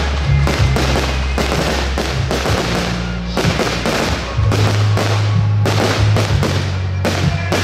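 Aerial fireworks shells bursting in a quick run of loud bangs, about two to three a second, over music with steady bass notes.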